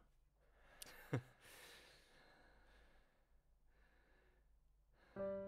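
A person sighs: a short voiced exhale falling in pitch about a second in, followed by soft breathing. A piano chord starts just before the end.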